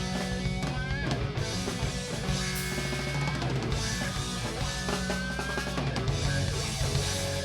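Rock band playing live: drum kit, bass and electric guitars at full volume, with lead guitar lines bending in pitch.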